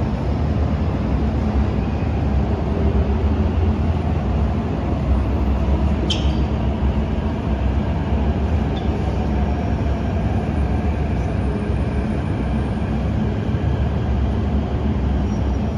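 MTR Changchun-built C-Stock electric multiple unit train running into an underground station platform behind platform screen doors: a steady low rumble of wheels and running gear. There is one short sharp tick about six seconds in.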